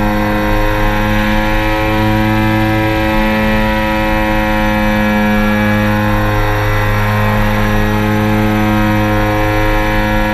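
Quadcopter drone's electric motors and propellers running at a steady hover, a hum with many overtones whose pitch wavers slightly.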